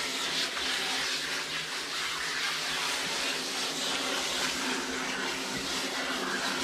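Hose spray nozzle running steadily, spraying water onto a lathered dog's coat and a tiled shower floor: an even hiss with a faint steady hum beneath it.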